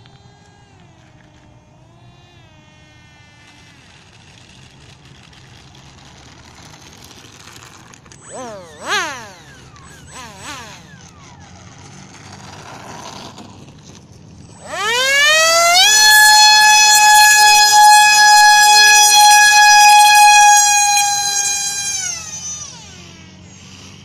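Electric motor of a foam radio-controlled model jet: a couple of brief throttle blips that rise and fall in pitch, then a fast rising whine to a loud, steady high-pitched whine at full throttle for takeoff, held for about seven seconds before it drops in pitch and fades.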